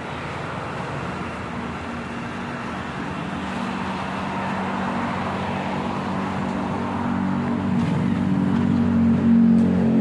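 Road traffic noise with a steady engine hum that grows louder toward the end.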